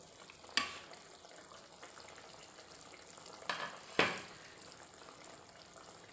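Dum aloo gravy simmering in an open steel kadhai, a steady soft bubbling hiss. Three sharp clinks of cookware break through it: one about half a second in, then two close together around three and a half to four seconds, the last the loudest.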